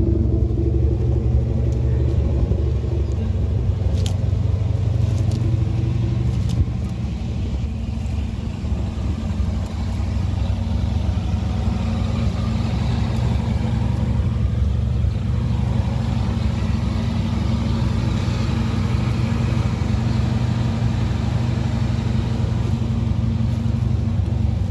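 Off-road 4x4 truck engine idling steadily, an even low rumble.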